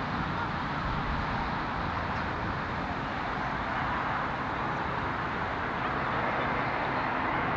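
Airbus A350 on final approach, its Rolls-Royce Trent XWB jet engines giving a steady rushing roar that grows slowly louder as the airliner comes nearer.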